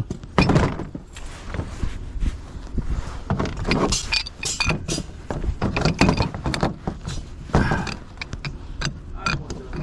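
Steel pipe wrenches being handled and fitted onto a gas riser's metal fitting: irregular clinks and knocks of metal on metal, some with a short ring.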